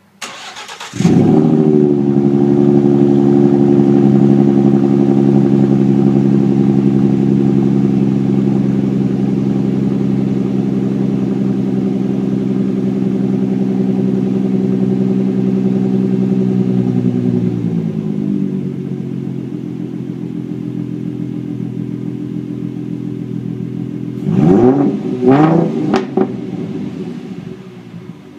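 2013 Roush RS Mustang's 3.7-litre V6 starting and running with its axle-back mufflers removed. It cranks briefly, catches about a second in and holds a fast idle, which steps down to a lower idle a little past halfway. Near the end come two quick revs.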